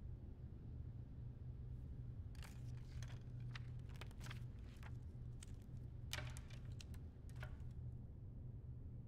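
Papers and small objects being handled on a desk: a string of soft, irregular rustles and clicks over a steady low hum.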